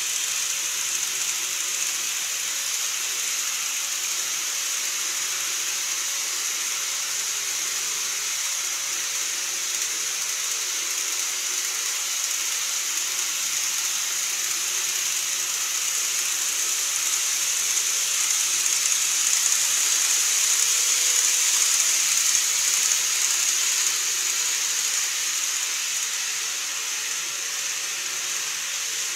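KATO N-gauge model trains running on the layout's track: a steady hissing whir of wheels and motors, swelling for several seconds past the middle as a train runs by.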